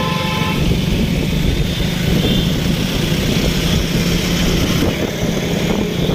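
Motorcycle engine running steadily while riding along a road, with road noise. A vehicle horn that is already sounding stops about half a second in.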